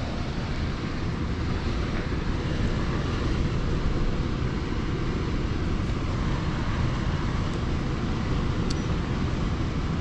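Air handler blower running steadily, a constant rush of air and motor noise, as the electric heat is tested.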